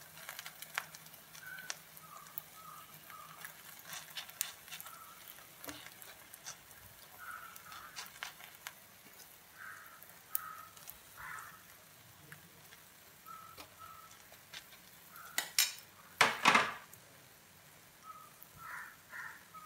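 A metal spoon scraping and tapping in a nonstick frying pan as filling is spread over batter, with a faint sizzle of the batter cooking. Scattered light clicks run throughout, with a burst of louder clatter about three-quarters of the way through.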